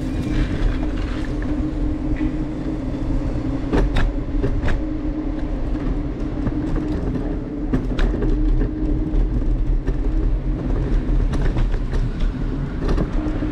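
Steady rumble and hum of a ride through city streets picked up by an action camera, with a few sharp clicks and knocks.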